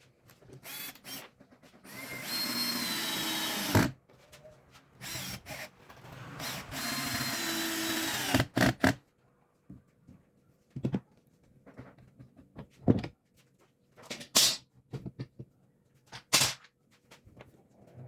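Power drill boring into wood in two runs of about two seconds each, followed by scattered sharp knocks and taps.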